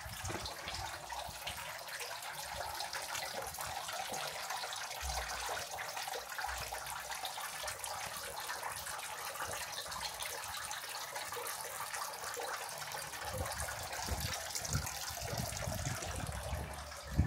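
Running water splashing steadily.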